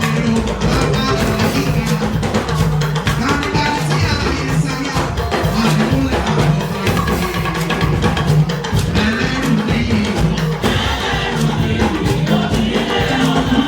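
Live church music: a drum kit playing under singing voices.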